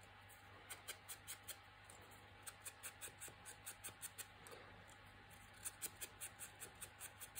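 Faint, quick taps of a round foam ink blending tool dabbing Distress ink onto the edges of a patterned paper strip. The taps come in three short runs of rapid strokes.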